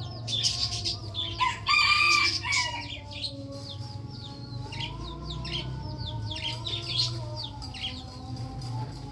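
Roosters crowing: a loud crow about two seconds in, then a long drawn-out crow held through the second half. Small birds chirp throughout.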